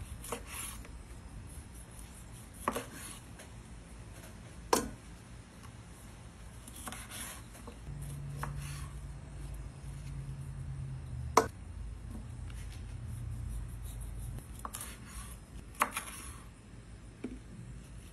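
A knife cutting raw chicken wings apart at the joints on a cutting board, with several sharp knocks a few seconds apart as the blade goes through and hits the board, and handling and scraping of the meat in between.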